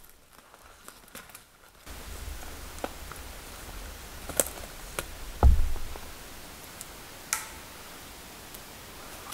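Quiet movement on a forest floor: a few faint twig snaps, then a steady hiss with scattered small clicks and one heavy low thump about five and a half seconds in.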